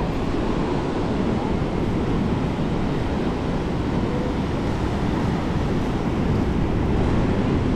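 Ocean surf breaking on the beach, with wind buffeting the microphone: a steady rushing noise.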